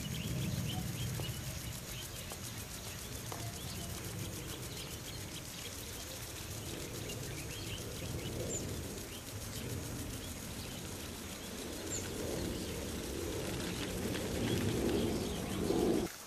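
Outdoor rural ambience: a steady low rumble of open-air noise, with scattered faint bird chirps above it.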